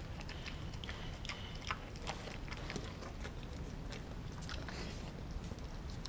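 Dog chewing and gnawing a frozen raw turkey steak: irregular crunching clicks from the hard meat, over a steady low background rumble.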